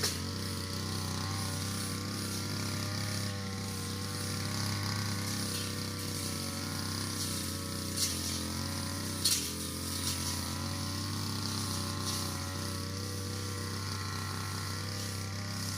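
Brush cutter engine running steadily while cutting grass, its pitch wavering slightly under the load, with two sharp clicks a little past halfway.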